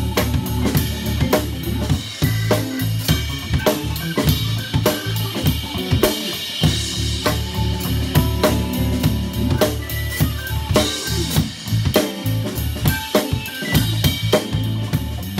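Funk jam band playing live, with the drum kit up close and loudest: quick snare and kick-drum strokes and cymbals over a low bass line, guitar and keyboards.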